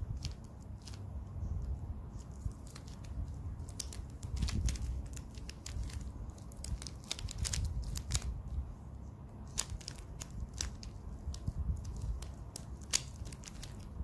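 Plastic 3x3 mirror cube being turned by hand: its layers clack and click in quick, irregular runs of sharp clicks as the faces are twisted.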